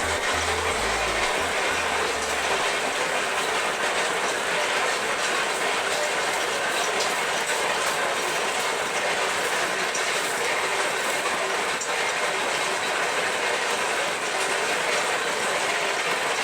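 Steady, dense mechanical rattling noise from a running machine, unchanging in level.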